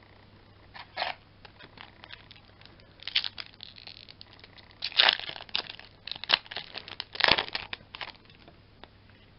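Foil wrapper of a Yu-Gi-Oh booster pack being crinkled and torn open by hand. It comes as a string of irregular crackling rustles, the loudest about halfway through and again near the end.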